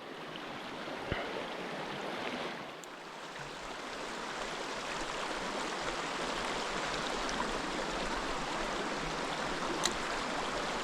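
Mountain stream water running steadily, with a faint click about a second in and another near the end.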